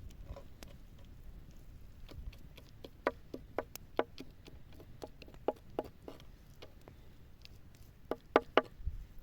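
A string of irregular sharp knocks, each with a brief hollow ring, bunched in two clusters with the loudest near the end.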